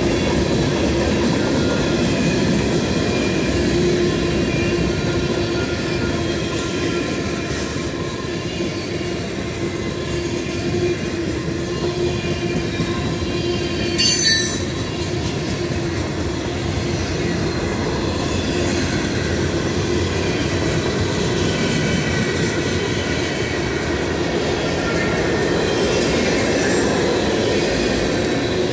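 Freight train cars (tank cars, covered hoppers and gondolas) rolling past: a steady rumble of steel wheels on the rails with a held squealing tone. A brief sharp noise comes about halfway through.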